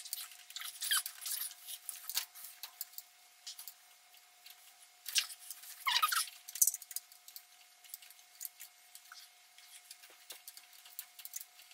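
Light clicks and a few short squeaks of parts being handled at a TBI throttle body's throttle lever and linkage, the clearest squeak about six seconds in, over a faint steady hum.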